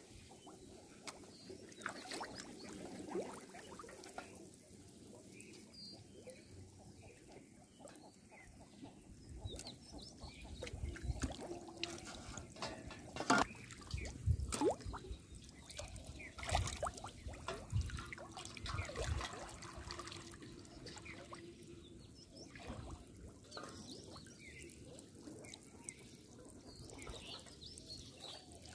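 Shallow pond water being stirred, splashing, trickling and dripping in irregular small splashes that are busiest around the middle.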